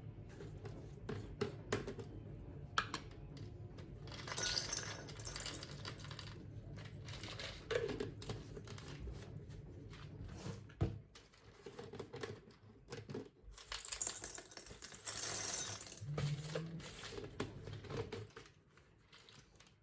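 Small objects being handled: scattered light clicks and knocks, with two stretches of rustling hiss, one about four seconds in and one near fourteen seconds.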